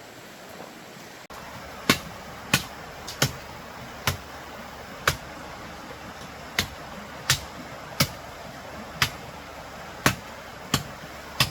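A blade chopping bamboo: about a dozen sharp strikes, roughly one a second, starting about two seconds in.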